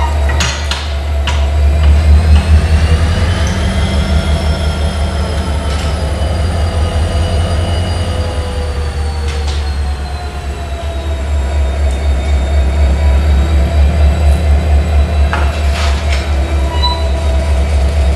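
Class 65 'GM' diesel locomotive running with a deep steady drone as it creeps up to the coaches to couple on. Over it, a high squeal slowly rises and falls, and there are a few sharp clanks.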